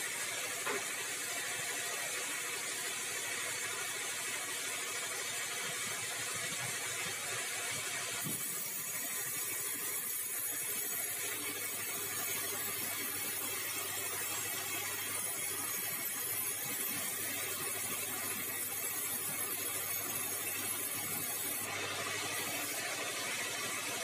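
Sawmill band saw running and ripping a bengkirai hardwood timber fed on a log carriage: a steady hiss of cutting over the machine's hum. The hiss grows brighter about eight seconds in and eases about two seconds before the end.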